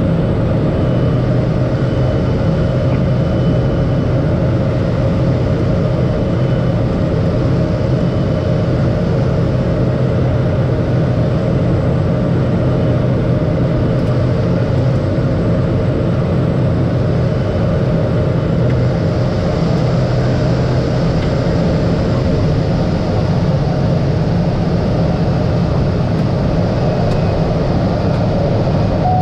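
Cessna 208B Caravan's turboprop engine and propeller running steadily, heard inside the cockpit, with a low steady drone and a hum. A brighter hiss joins about two-thirds of the way through.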